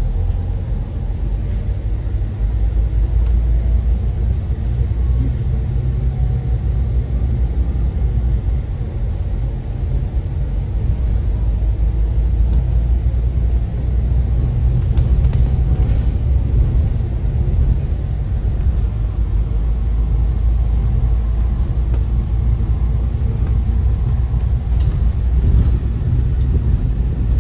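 Steady low engine and road rumble inside a moving public bus, with a few faint clicks.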